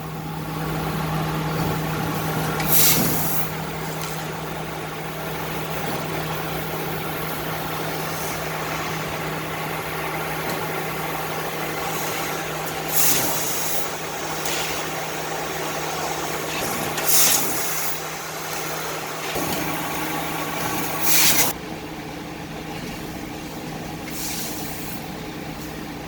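CNC laser cutting machine running with a steady hum, broken by five short bursts of hissing about 3, 13, 17, 21 and 24 seconds in.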